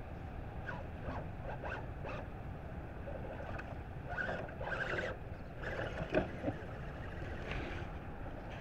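Dry leaves and twigs crackling and rustling under the tires of an RC crawler truck as it climbs over a mossy log, thickest in the middle with one sharper snap about six seconds in, over a steady low rumble of wind on the microphone.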